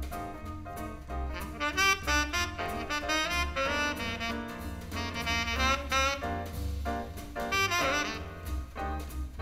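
Jazz band instrumental break: a saxophone plays a solo over a walking bass line and drums.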